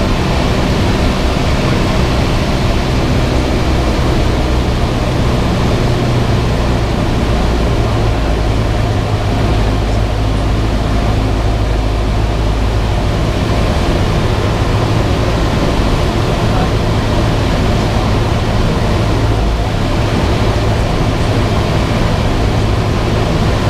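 Cessna 172 cockpit noise: the piston engine and propeller running steadily under a broad wash of air noise. The low engine drone shifts a little in pitch a couple of times.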